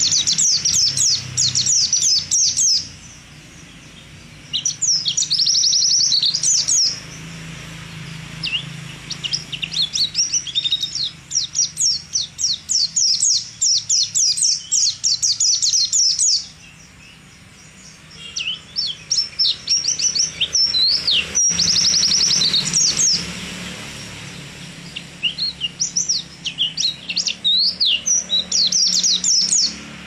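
Caged white-eye (pleci) singing long runs of rapid, high-pitched twittering notes. The runs break off briefly four times, the longest pause about two-thirds of the way through.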